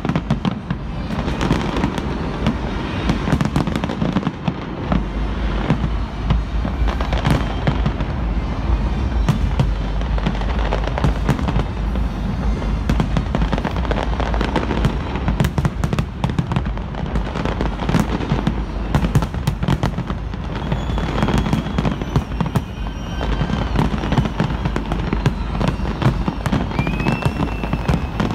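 Large fireworks display: many shells bursting in rapid, overlapping succession, a dense run of bangs and crackle with no let-up, over music.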